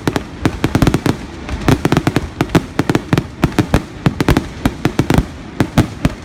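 Fireworks going off in a rapid, irregular run of sharp bangs, several a second.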